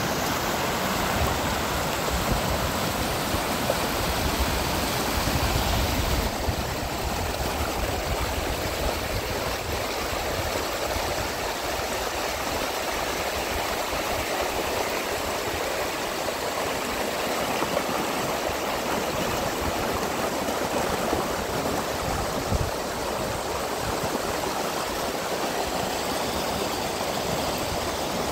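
Steady rushing water, with a deeper low rumble underneath that drops away about six seconds in.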